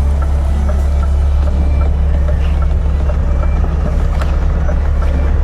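Lorry diesel engine running with a steady low drone as the truck is manoeuvred into a loading bay, with faint small ticks repeating evenly over it.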